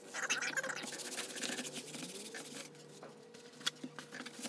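A damp melamine foam sponge (magic eraser) scrubbing a vinyl door panel for about the first second, then a few light taps, over a faint steady hum.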